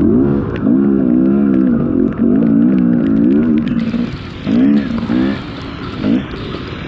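Dirt bike engine revving in hard surges, its note wobbling quickly up and down as the throttle is worked. It eases off a few times, for longer after about four seconds, with scattered clicks over it.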